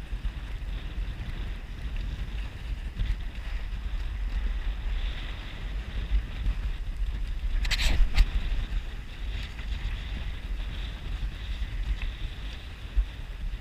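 Wind buffeting the microphone aboard a sailboat, a steady low rumble with wave noise in it, and one brief sharp crackle about eight seconds in.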